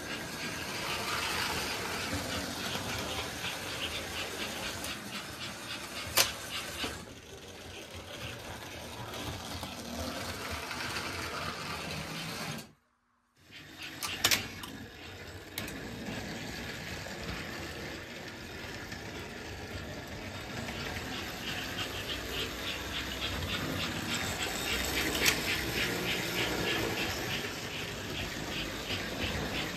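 American Flyer S-gauge toy steam locomotives running on the track: a steady motor and wheel-on-rail rumble with a fast rhythmic pulsing, broken by a few sharp clicks. The sound cuts out briefly a little before the middle.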